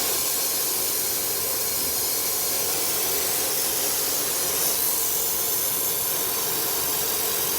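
Steady hiss with a faint machine hum from a robotic laser welding station.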